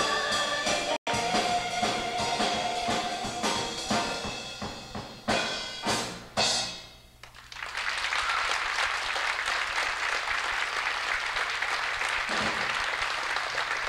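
Show choir singing with accompaniment, ending on a few loud final accents about six seconds in, with a brief drop-out in the sound about a second in. Then audience applause, steady to the end.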